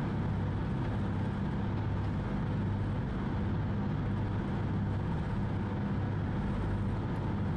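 Engines of the Anei Kanko high-speed ferry Paijima running steadily underway, a low, even hum heard from inside the cabin, over the rush of the hull through the water.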